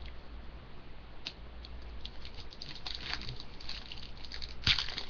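Trading cards being handled: small clicks and rustling that grow busier from about two seconds in, with a louder rustle near the end.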